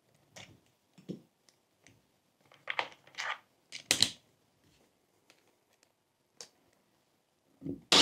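A few scattered light knocks, clicks and scrapes of wood and hand tools being handled on a workbench while a board is fixed in place. The clearest cluster comes a little under halfway through.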